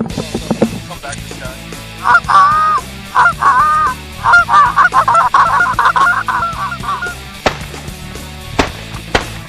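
Goose honking: two drawn-out honks, then a quick run of shorter honks that stops about seven seconds in.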